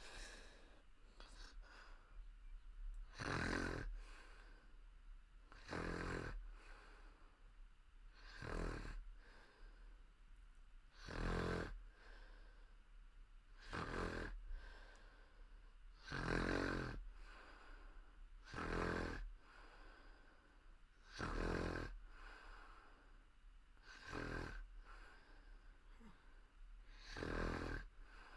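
A woman snoring in her sleep: about ten throat snores, one every two and a half seconds or so, each about a second long, with softer breaths between.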